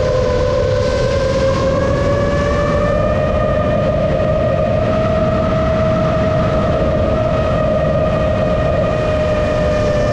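A 7-inch FPV quadcopter's motors and propellers whining steadily over a rumble of wind noise. The pitch climbs a little in the first few seconds and then holds.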